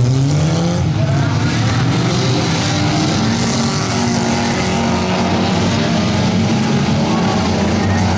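Several stock-car engines running hard at high revs on a dirt track, their overlapping pitches rising and falling. One engine revs up sharply at the start.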